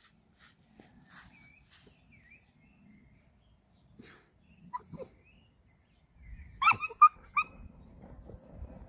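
Neapolitan Mastiff puppy giving three short, high-pitched barks in quick succession about two-thirds of the way through, over a low rumble; before that only faint small sounds.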